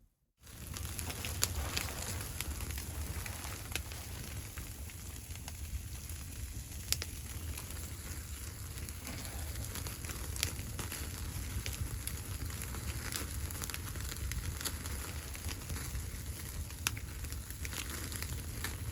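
Wood fire burning, with a steady hiss over a low rumble and sharp crackling pops every second or two. It starts abruptly about half a second in.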